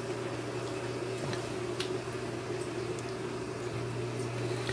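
A steady low hum of background room noise, with a few faint light clicks as a small servo and its metal bracket are handled.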